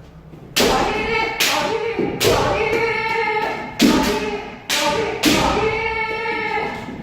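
Kendo practitioners stamping forward in fumikomi footwork, a sharp thud about once a second, each stamp joined by a long held kiai shout.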